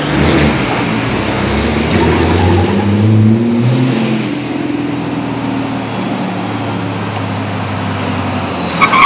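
Semi truck's engine pulling through a few gear changes, its pitch rising and dropping, then running steadily and a little quieter from about halfway.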